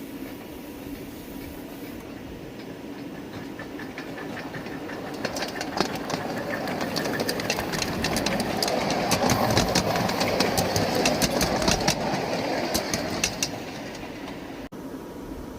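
A 5-inch gauge live steam locomotive and its train running past on the track. The wheels give quick irregular clicks, and the sound grows louder, peaks, then falls away near the end.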